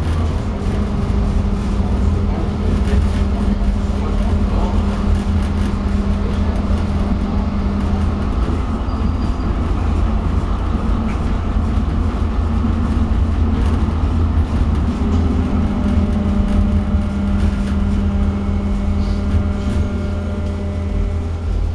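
Inside a moving tram (light rail car): steady rumble of the wheels on street track with a humming traction motor drive, the hum shifting in pitch about two thirds of the way through.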